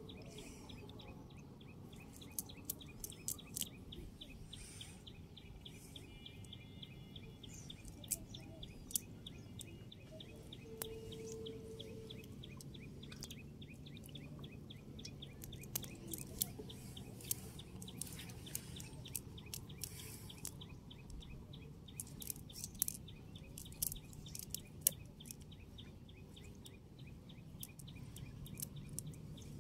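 Live fish in a water-filled metal basin splashing and knocking, giving scattered sharp clicks. Behind them runs a rapid, even ticking call that PANN hears as a bird.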